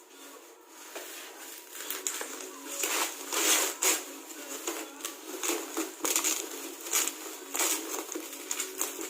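Packaging of a boxed power amplifier being torn open and handled: irregular crinkling and rustling bursts, loudest about three to four seconds in.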